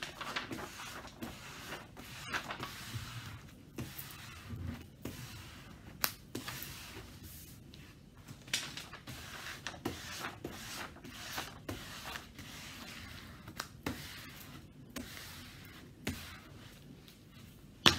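Rustling and crinkling of a large rolled diamond-painting canvas and its protective sheet being handled, unrolled and pressed flat by hand, with scattered small taps and one sharp click near the end.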